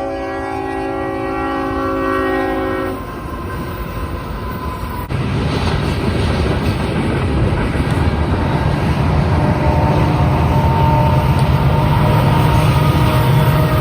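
Diesel freight locomotive horn sounding a chord of several tones, cutting off about three seconds in. About five seconds in, loud rumbling and rail noise come up suddenly as the train passes close by.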